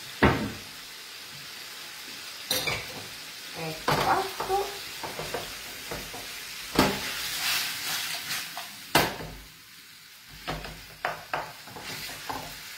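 Nervetti and cherry tomatoes sizzling in a frying pan over a high flame, stirred with a wooden spoon that knocks and scrapes against the pan about a dozen times, several in quick succession near the end.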